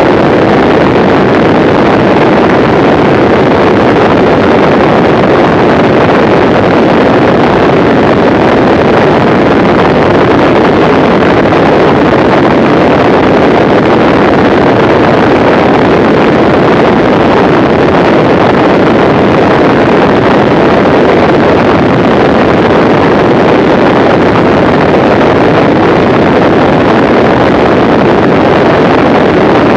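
Steady, loud in-flight noise of a Mooney M20C single-engine light aircraft at cruise speed, about 170 mph: engine and rushing air merged into one constant drone with no change in pitch.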